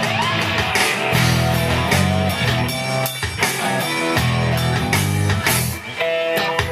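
Rock band playing an instrumental break between verses: guitar over bass and drums.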